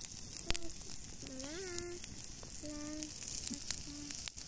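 Wood fire crackling under meat grilling over embers: a steady sizzling hiss with frequent small pops. A few faint voices call out in the background.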